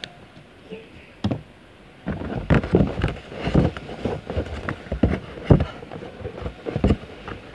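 Irregular rustling and bumping close to the microphone, starting about two seconds in: clothing and handling noise as a person moves right beside it.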